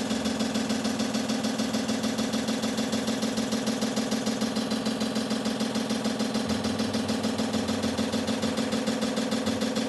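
LG washing machine running with a steady hum and a rapid, even knocking, about six knocks a second. The knocking comes from shower-curtain hooks caught in the drain filter and pump, which also stop the machine from draining.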